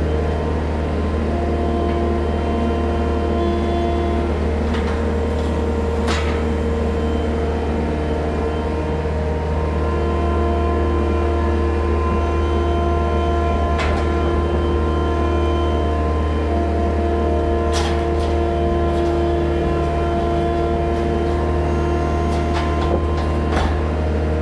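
Loader's diesel engine running steadily, heard from inside its cab, with a hydraulic whine that changes pitch a few times as the grab is worked. A few light knocks sound over it.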